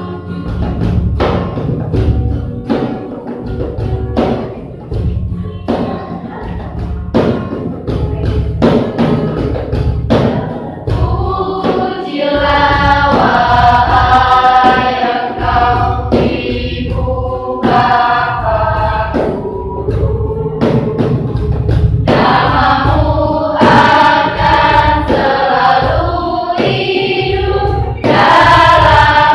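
School choir singing with a steady-beat accompaniment. For the first several seconds mainly the rhythmic accompaniment is heard; about eleven seconds in the voices come in strongly with sustained, held notes.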